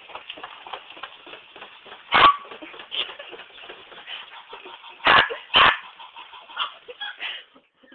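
Barking between a Miniature Pinscher and a voice-activated robotic toy dog that barks back at her: one sharp bark about two seconds in and two quick barks around five seconds in, over a constant patter of small clicks, recorded through a phone's microphone.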